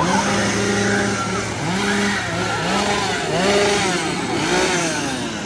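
More than one chainsaw engine revving, overlapping: the pitch rises in repeated surges, holds briefly, and drops again, several times over.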